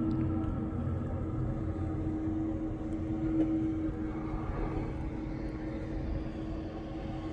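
An engine running steadily, with a constant hum and a low rumble.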